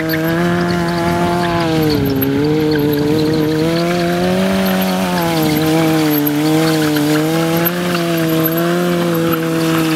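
Honda CBR600F4 inline-four engine held at high revs in a burnout, its rear tyre spinning and squealing on the asphalt. The engine note stays high and steady, dipping and rising slightly as the throttle is worked.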